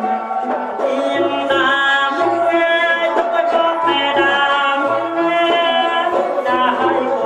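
A man singing into a microphone through a PA system over amplified backing music with a steady, repeating bass line.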